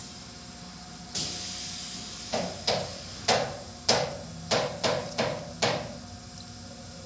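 Automatic car wash equipment heard from inside the car: a rush of spray about a second in, then a run of about eight sharp slaps against the car body, each dying away quickly.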